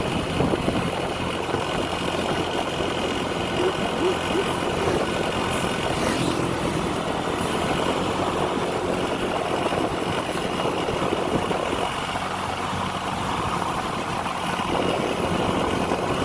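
Vehicle engine idling with a steady low hum, under continuous traffic noise.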